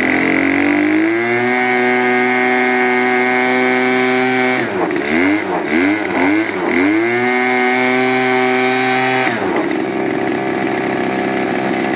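Small two-stroke engine of a gas-powered blender revving up to a high, steady speed as it blends a smoothie. It is throttled down and up three or four times in the middle, held high again, then drops back to idle near the end.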